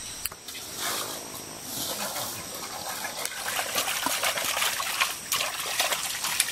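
Water splashing and trickling as hands scoop water from a plastic bucket and slosh it around in a metal pot, with many short splashes. A steady high buzz of forest insects runs underneath.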